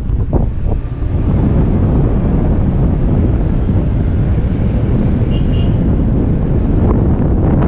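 Wind rushing over the microphone of an action camera on a tandem paraglider in flight: a loud, steady rumble.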